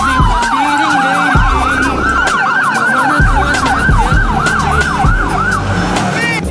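Emergency vehicle siren in fast yelp mode, about four rising-and-falling sweeps a second, with a second siren tone sliding slowly down in the first second and a half, over a low rumble; it cuts off suddenly near the end.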